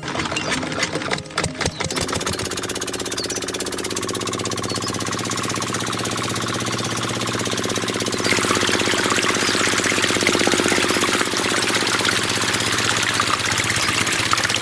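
A small engine running with a fast, even knocking beat, after irregular clattering in the first two seconds.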